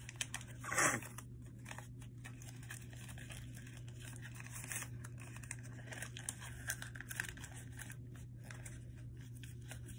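Paper rustling and crinkling softly as a sheet is handled and creased while folding an origami paper jet, with one brief louder sound about a second in. A steady low hum sits underneath.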